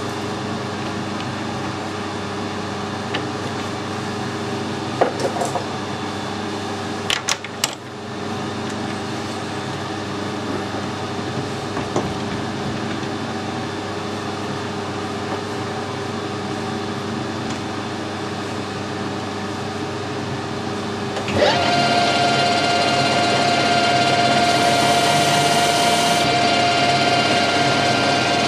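Lathe standing with its spindle stopped: a steady machine hum with a few clicks and knocks. About 21 seconds in the spindle starts and runs on with a steady whine.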